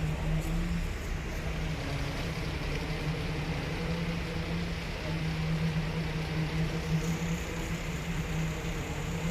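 Steady low machinery hum with a constant drone and an even rumbling noise beneath it, unchanging throughout.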